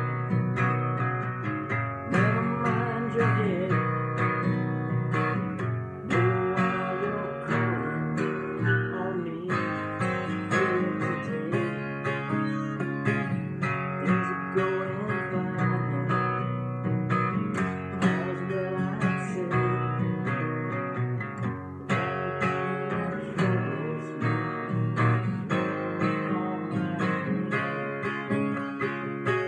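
Acoustic guitar strummed in a steady rhythm of chords, with a man's voice carrying a wavering melody along with it at times.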